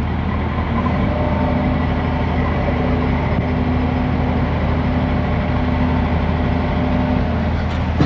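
An engine running steadily at idle: a continuous low hum, with a slightly higher steady tone joining about a second in and dropping out near the end.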